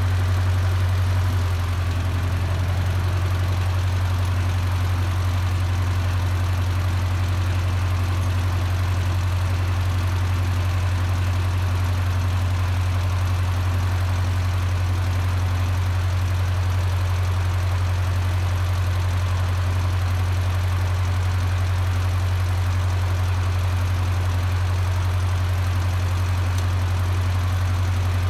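Small antique tractor's engine idling steadily with a low, even hum; it settles to a slightly lower level about a second and a half in.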